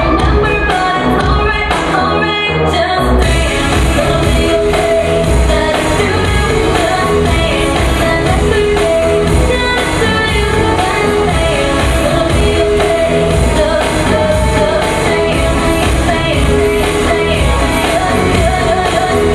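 Pop song with a lead singer over a steady beat; the bass drops out briefly about two and a half seconds in.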